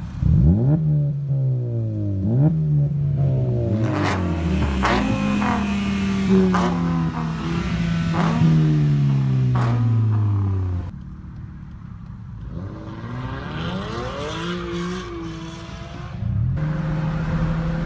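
Car engines revving, their pitch climbing and dropping back again and again for about ten seconds as a line of cars pulls off. It then quietens with one slow rise, and near the end settles into a steady engine hum from a moving car.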